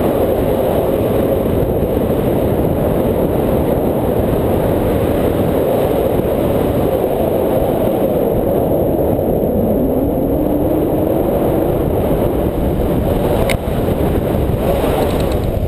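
Loud, steady wind noise from airflow buffeting the microphone of a pole-mounted camera on a paraglider in flight. A single sharp click comes near the end.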